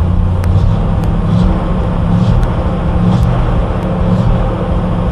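Ford F-600 truck's rebuilt 352 cubic inch V8 idling cold, heard from the cab, with the manual choke partly pushed in. The idle is steady, with a slight waver in the engine note.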